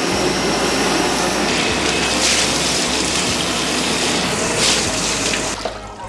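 Water churning and gushing steadily in an electric washing machine as blowtorch-singed pig trotters are washed. It eases off near the end.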